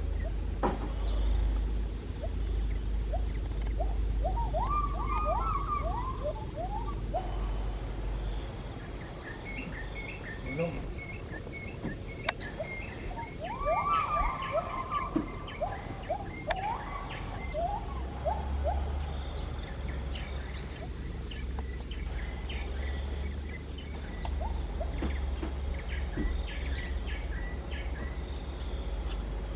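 Tropical forest ambience by day: a steady high-pitched insect drone runs throughout. Over it come two bouts of rising, whooping calls in quick series, along with scattered bird chirps and some low rumble.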